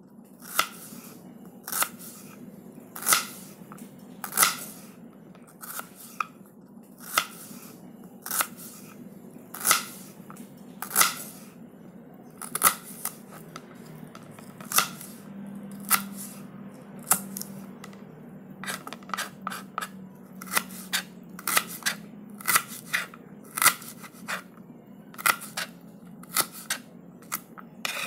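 A knife cutting through an onion: a long series of crisp slicing cuts, about one every second and a half at first, then coming faster and closer together in the second half, over a faint low hum.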